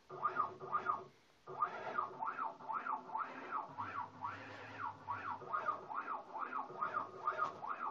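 Stepper motors of a homemade CNC mill making quick jog moves, each a whine that rises and falls in pitch as the motor speeds up and slows down. The moves repeat about two to three times a second, with a short pause about a second in.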